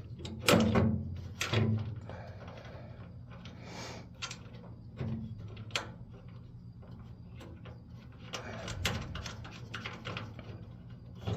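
Scattered metal clicks and scrapes of lock nuts being started on the gas pedal's mounting bolts and handled in the pedal box. A few louder clicks come in the first couple of seconds and a busier run of them about two-thirds of the way through, with quieter handling noise between.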